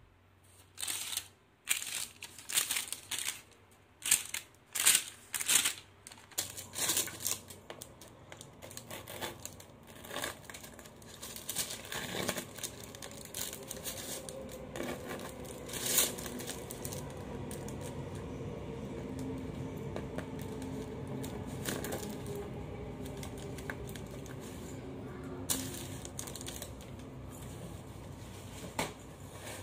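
Baking paper crinkling and a crusty, freshly baked loaf being handled and cut with a knife. Sharp crackles and taps come in the first few seconds, followed by a steadier scratchy rustle.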